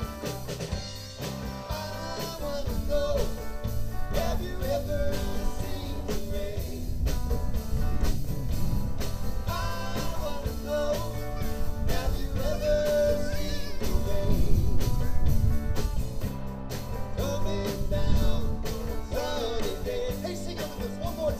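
Live rock band playing: electric guitars, bass guitar and drums.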